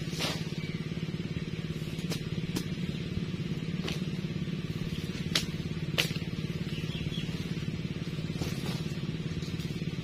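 Sharp chops of a machete cutting through napier grass stalks, about eight irregularly spaced strikes, the loudest about six seconds in. Under them a steady low motor hum.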